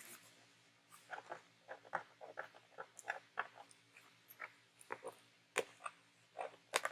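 Packing tape being picked and peeled off the back of a doll's box, with irregular crackles and crinkles of tape and packaging.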